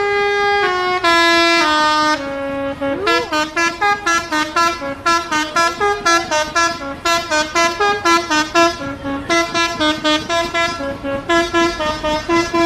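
Bus 'telolet' Basuri multi-tone horn playing a melody: a few long notes stepping down, a short swooping note, then a quick run of short notes about three a second.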